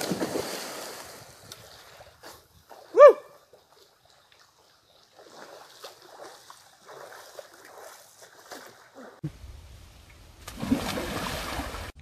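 Water splashing: a splash at the start that dies away over a second or so, faint sloshing, and another stretch of splashing near the end, with a short shout about three seconds in.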